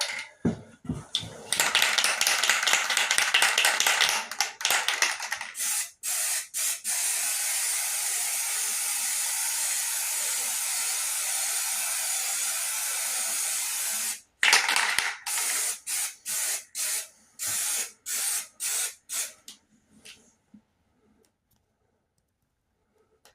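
A loud, high-pitched hissing that starts and stops abruptly many times, holds steady for several seconds in the middle, then comes in short bursts before dying away to near silence near the end.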